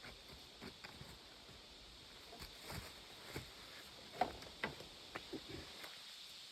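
Faint, irregular light taps and clicks over a steady hiss, with one sharper tap a little past four seconds in.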